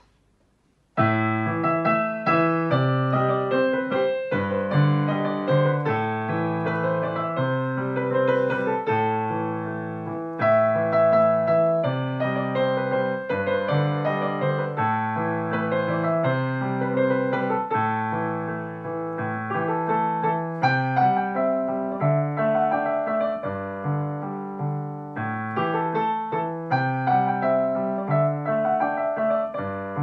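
Digital piano played with both hands, starting about a second in: a melody over sustained chords and bass notes.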